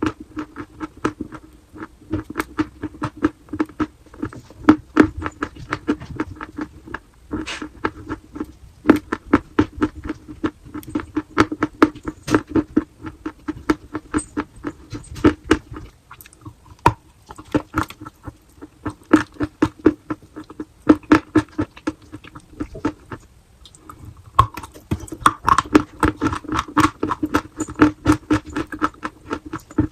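Chalk being bitten and chewed close to the microphone: a dense run of sharp crunches and clicks, broken by a few short pauses, over a steady low hum.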